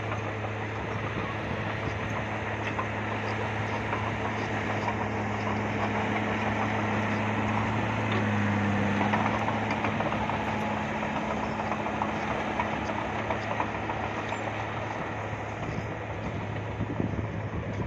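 Bulldozer's diesel engine running steadily with a low, even note, under a rattling, clattering din; the engine swells louder about halfway through, then eases back.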